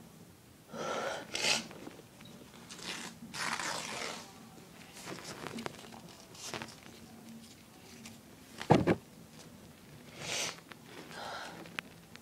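A person's noisy breaths working up to a sneeze on a tickly nose, then one short, sharp sneeze about nine seconds in, followed by a few more breaths.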